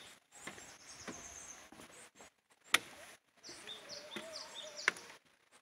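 Small birds chirping in short, high calls, in a cluster near the start and another a little after the middle, with two sharp knocks about two seconds apart.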